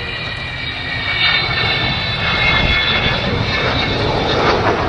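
Avro Vulcan's four Rolls-Royce Bristol Olympus 202 turbojets during a display pass: a dense jet roar with steady high whining tones, growing louder as the bomber comes closer.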